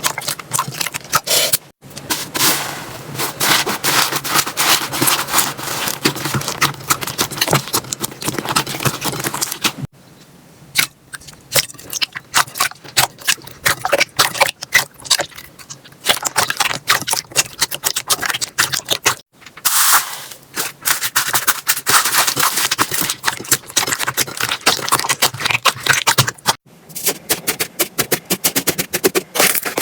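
Slime being squeezed and pressed by hand, giving dense crackling and popping clicks, interrupted by a few sudden breaks where one clip cuts to the next.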